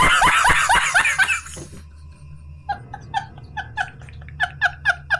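Laughter sound effects: a loud, hearty laugh in quick bursts that fall in pitch, fading out about a second and a half in. After a short pause comes a quieter, fast rhythmic giggle of about five short pulses a second, over a steady low hum.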